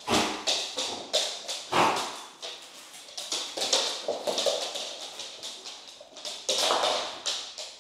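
Dogs' nails clicking and tapping on a hard floor as the dogs move about. The clicks come several a second and unevenly, with a few heavier thuds at the start, about two seconds in and about six and a half seconds in.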